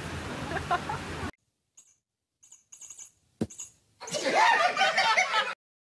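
Outdoor background noise with a voice, cut off suddenly about a second in. Then near silence with faint ticks and one sharp click, then about a second and a half of loud, high-pitched excited voices that stop abruptly.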